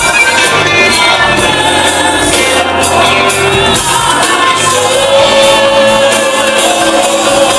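Loud live Christian music: a band plays while a male and a female lead singer sing into microphones, with voices from the stage and the crowd joining in.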